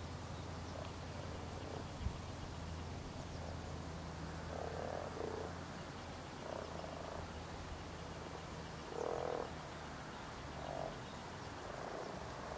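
European common frogs (Rana temporaria) croaking: the low breeding calls of males at spawning time, as a handful of short calls a second or two apart, the loudest about nine seconds in. A steady low hum runs underneath.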